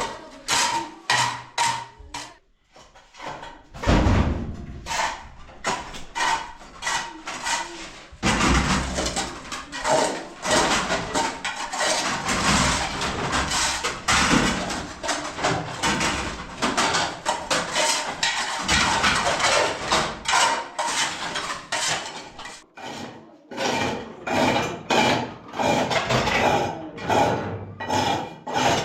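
Rapid, repeated scrubbing and rubbing strokes on a hard surface, several a second, with occasional knocks, as of a kitchen being scrubbed clean.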